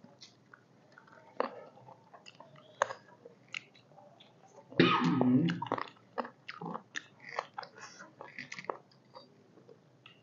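Close-up chewing and lip smacking of people eating boiled chicken by hand, with many small scattered clicks. About five seconds in comes one short, louder cough.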